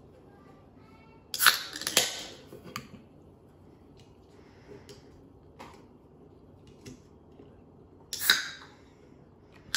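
An aluminium soda can of diet cola is handled on a table, with two sharp clicks at about one and a half and two seconds. Near the end someone takes a sip from the can.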